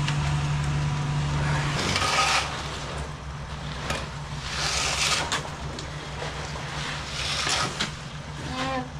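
An engine runs steadily, its low note shifting about two seconds in, with short bursts of hissing noise every couple of seconds.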